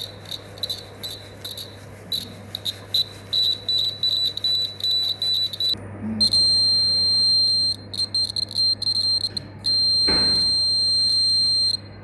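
Electronic buzzer of a student-built disaster early-warning alarm sounding a single high-pitched tone: quick, uneven beeps for several seconds, then two long continuous beeps of about one and a half and two seconds with short beeps between them. This is the alarm set off by its fire, earthquake or flood sensors. A single knock comes during the second long beep.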